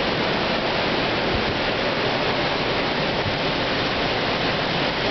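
Hurricane-force wind blowing through trees: a steady, unbroken rush of noise.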